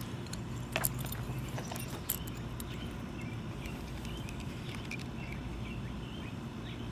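A few faint metallic clicks and small scrapes, about a second and two seconds in, as a tension wrench and the pick needle are set into a Master Lock No. 5 padlock's keyway. A low steady hum runs underneath, with faint bird chirps.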